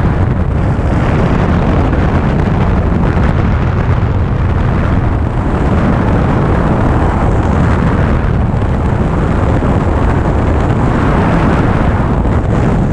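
A light high-wing propeller airplane's engine running steadily in flight, under a heavy rush of wind buffeting the microphone.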